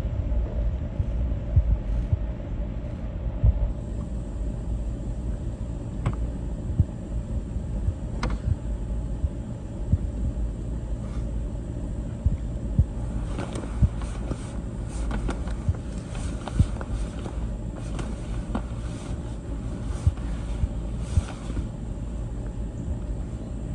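Low, uneven rumble of wind buffeting the microphone on an open rooftop, with scattered clicks. From about halfway on, repeated short rustles and scrapes as the sheet of EPDM rubber roofing membrane is pulled and shifted across the roof.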